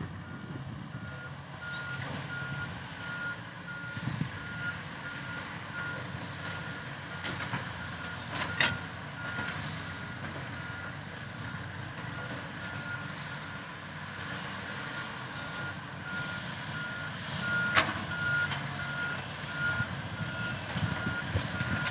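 Caterpillar 320C hydraulic excavator with its travel alarm beeping steadily at one pitch over its running engine, the sign that the machine is tracking. Two sharp knocks cut in, about nine seconds apart.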